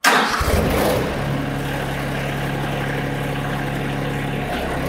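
TYM T254 tractor engine coming in suddenly loud, then running steadily at raised revs. Near the end the note dips briefly as the loader begins lifting a pallet of about 890 lb of salt bags.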